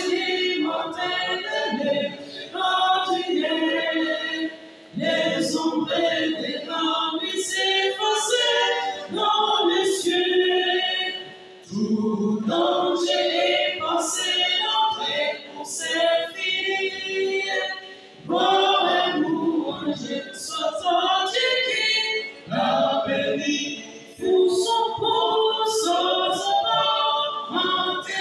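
Small all-male vocal ensemble singing unaccompanied in harmony, in phrases broken by short pauses for breath every few seconds.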